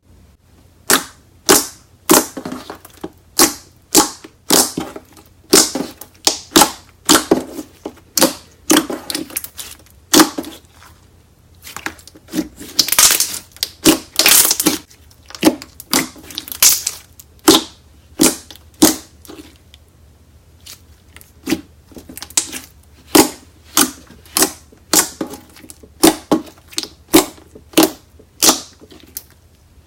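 Slime being squeezed and pressed by hand, giving a string of sharp pops and crackles about one or two a second, with a denser run of crackling in the middle.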